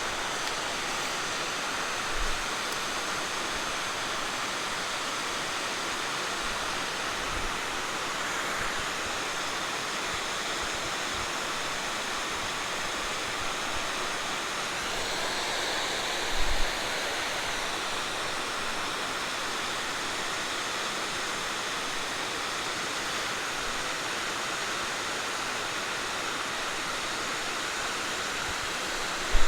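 Steady rushing of water pouring over a river spillway, with a few brief low thumps.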